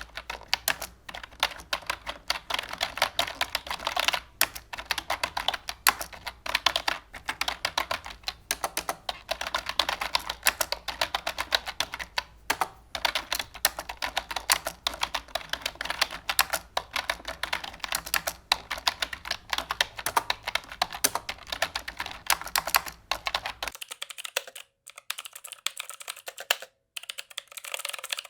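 Fast typing on a computer keyboard: a dense run of key clicks broken by short pauses. A low hum underneath stops about 24 seconds in, and after that the keystrokes are sparser and quieter.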